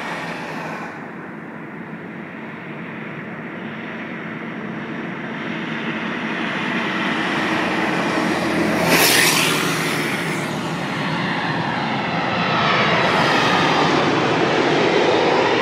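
Jet engines of a twin-engine widebody airliner on final approach, growing louder as it passes low overhead, with a falling whine near the end. About nine seconds in, a tanker truck passes close by with a brief loud rush.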